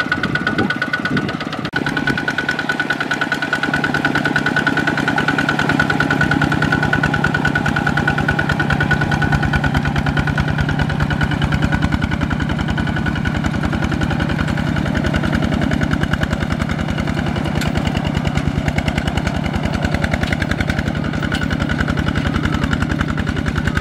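Single-cylinder diesel engine of a two-wheel walking tractor running under load, a rapid, even chugging beat as it pulls a loaded trailer through mud.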